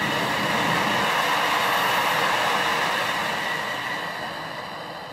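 MAPP gas hand torch burning with a steady rushing hiss, loudest about two seconds in and fading toward the end as the blue flame gets smaller.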